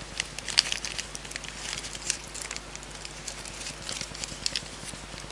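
Light irregular clicking and rustling as a stainless steel key carabiner is handled and clipped onto a pocket, with a few sharper metal clicks in the first half.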